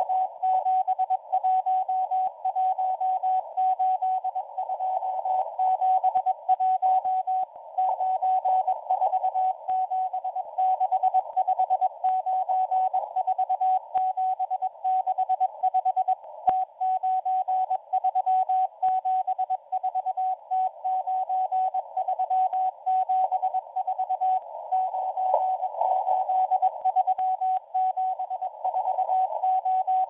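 Shortwave Morse code (CW) from the M01 number station, received through an SDR: a steady mid-pitched beep keyed in dots and dashes, sending number groups, over hiss and crackling static.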